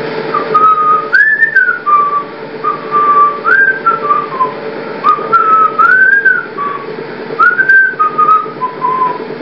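A person whistling a tune: a string of held notes with upward swoops, over a steady background hum.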